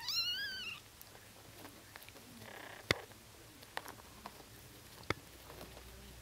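A newborn Bengal kitten gives one short, high, wavering squeak. A few sharp clicks follow, the sharpest about three seconds in.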